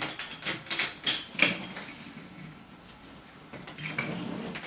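Handling sounds of a riqq being turned in the hands while wet tissue is wrapped around its skin: scattered short clicks and light metallic clinks from the frame's brass jingles, thickest in the first second and a half and again near the end.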